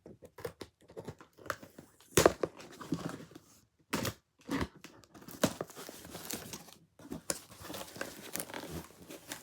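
Packaging being torn open and crinkled by hand: irregular rips and rustles with short pauses.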